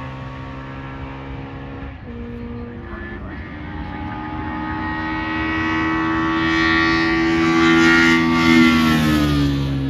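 VW Polo hillclimb race car engine under hard acceleration, its pitch climbing and its sound growing louder over several seconds, then the pitch falling away near the end.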